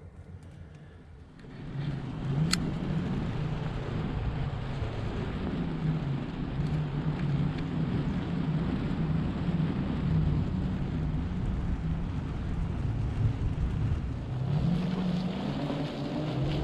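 Omeo self-balancing electric wheelchair driving over rough ground, its drive motor humming with a wavering low tone over tyre noise. It starts moving about a second and a half in, with a sharp click soon after, and the motor's pitch rises near the end as it speeds up.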